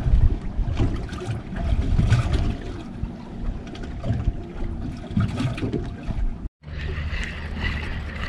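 Wind buffeting the microphone, with water lapping against a small boat's hull. The sound drops out for a moment about six and a half seconds in and comes back steadier.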